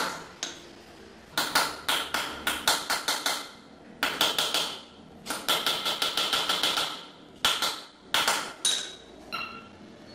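Claw hammer tapping on a wooden newel post in quick runs of light strikes, about five or six a second, with a slight ringing tone; the runs stop and start several times.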